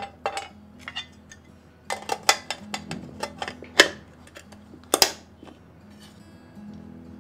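Sharp metallic clicks and clatter of a stainless steel lunch box as food is dropped in and the lid is pressed and clipped shut, then a loud knock of a steel spoon on a steel plate about five seconds in. Soft background music runs beneath.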